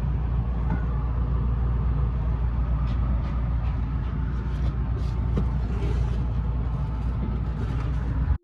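Car engine running steadily with a low rumble, cut off abruptly near the end.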